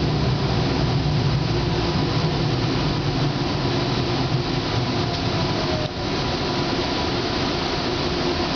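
Running noise heard from inside a Siemens Combino Be 6/8 low-floor tram in motion: a steady rumble of the wheels on the rails with a faint steady tone from the drive over it.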